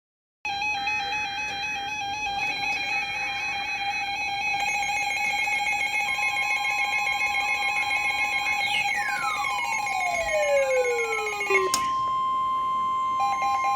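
Synthesized electronic tones: a steady, slightly warbling tone with overtones, joined about six seconds in by a second steady tone. Several falling pitch sweeps follow, then a sharp click near the end.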